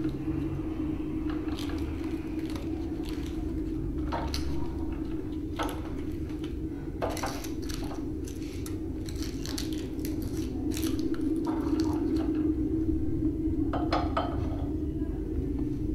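Small cups and dishes clinking and knocking as they are handled and set down on a table, a dozen or so scattered strikes, over a steady low hum.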